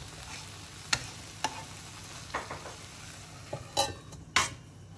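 Wooden spatula stirring mushroom masala in a kadai over a low sizzle of frying, with a few short scrapes. Near the end a stainless steel lid clinks down onto the pan twice, the second clink the loudest, and the sizzle turns muffled under the lid.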